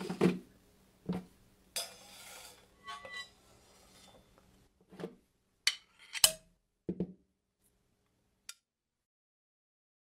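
Drum kit played as film sound effects: scattered single drum and cymbal strikes, with a short cymbal wash about two seconds in and the loudest hit about six seconds in, stopping about eight and a half seconds in.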